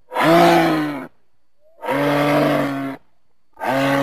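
Moose calling: two calls of about a second each with a short gap between them, and a third beginning near the end.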